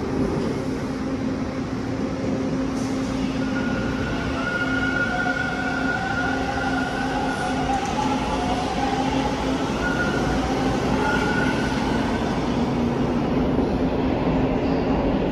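TTC T1 subway train pulling out of an underground station platform, with steady rumbling wheel and track noise. A whine rises over it about four seconds in and fades again by about twelve seconds as the train clears the platform.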